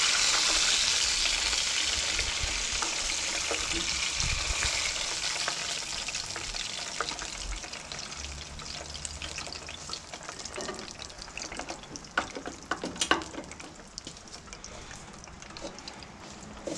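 Hot deep-frying oil in a pot sizzling, loudest at first and slowly dying away, with a few sharp crackles or clicks in the later seconds.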